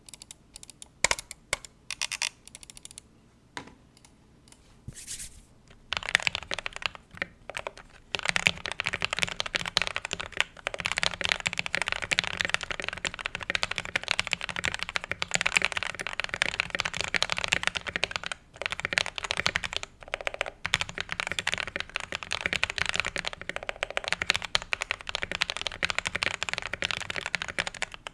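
DK87 mechanical keyboard with KTT Kang White linear switches being typed on: a few separate key presses for about the first six seconds, then fast, continuous typing.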